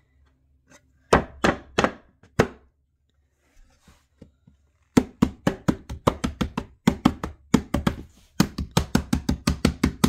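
Rapid knocks on a wooden hive box, driving its last dovetail-jointed side into place: four strikes about a second in, then a quick run of about five strikes a second from halfway on.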